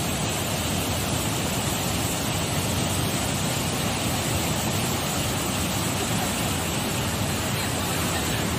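A river in flood, a fast muddy torrent rushing past the bank in one steady, unbroken wash of noise.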